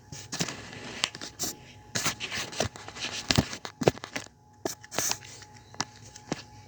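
Candy packaging being handled and opened: irregular crinkling and rustling with sharp clicks.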